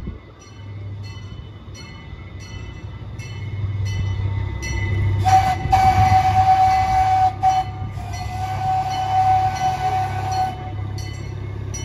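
Miniature zoo train No. 382 sounding its chrome holiday whistle as it approaches: two steady blasts, about two seconds and then about three seconds long, over the low rumble of the running train.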